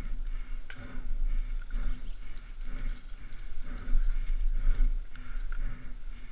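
A mountain-bike rider breathing hard in a steady rhythm, about two breaths a second, as heard from a helmet camera, with a constant low wind rumble on the microphone.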